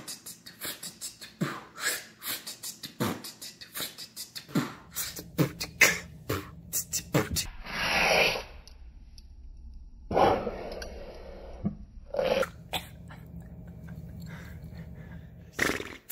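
A woman beatboxing as a learner: a fast run of short percussive mouth clicks and kicks, then a few longer drawn-out vocal sounds with sparser clicks between them.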